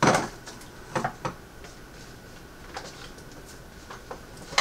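Metal food cans knocking and clinking as they are handled and taken out of a shopping bag: several separate knocks, the sharpest at the start and near the end, over a faint steady high hum.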